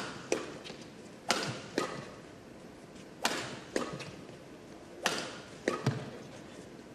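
Badminton rackets striking a shuttlecock in a fast rally: a string of sharp cracks, some loud and some softer, each echoing in a large hall.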